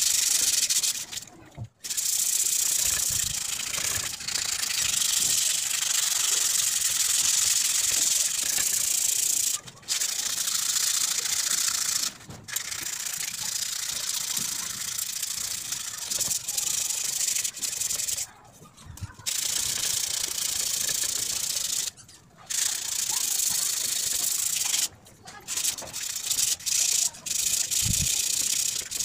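Hand sanding of a rusty steel office-chair base: abrasive rubbed back and forth along the legs in a steady scratchy hiss, with short pauses every few seconds.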